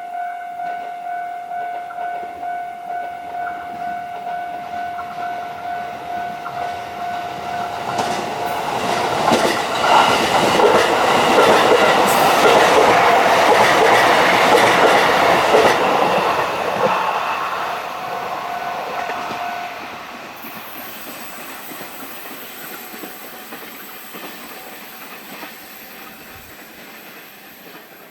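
Level-crossing warning bell ringing in a steady pulsing rhythm while a multiple tie tamper rolls through the crossing. The machine's running noise and rail clicks swell to a loud peak, then fade. The bell stops about twenty seconds in.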